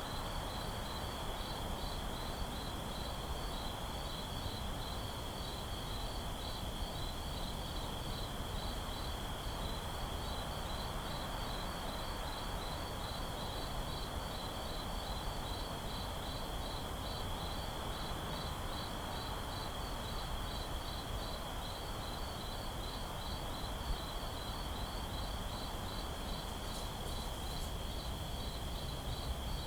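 Night ambience of crickets: one steady high trill with a fast, even run of chirps above it, over a low, steady hiss.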